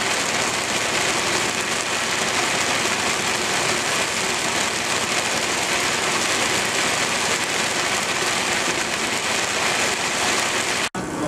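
Heavy rain beating on a semi truck's cab and windshield while driving, mixed with tyre spray through standing water on the road, an even loud rushing. It cuts off suddenly near the end.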